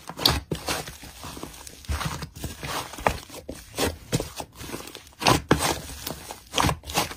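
Soft white slime squished and kneaded by hand, with irregular sticky clicks and pops.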